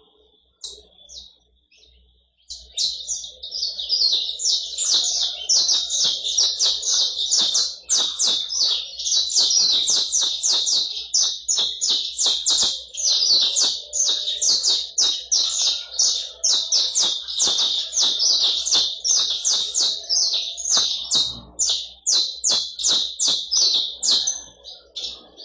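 Saffron finches (canário-da-terra) singing a fast, continuous stream of sharp, high-pitched notes. A few scattered notes come first, and the full song takes off about two and a half seconds in and keeps going without a break.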